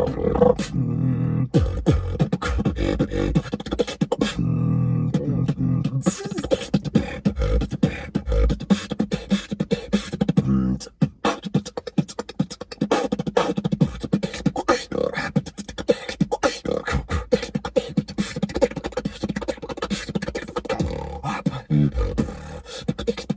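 Solo beatboxing: a fast stream of mouth-made drum sounds, kicks, snares and hi-hat clicks. A low hummed bass tone runs under the first several seconds, and there is a brief break about eleven seconds in.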